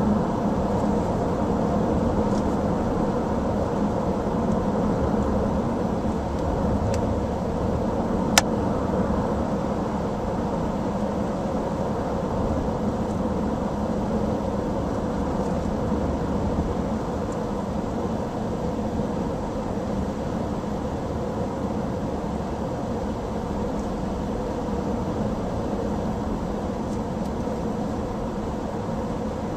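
Steady road and engine noise of a car driving at highway speed, heard from inside the cabin, with one sharp click about eight seconds in.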